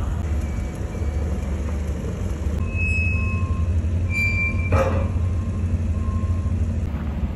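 Steady low rumble of a running engine of heavy machinery. A few short, high, steady beeps sound partway through, and a single sharp knock comes a little before five seconds in.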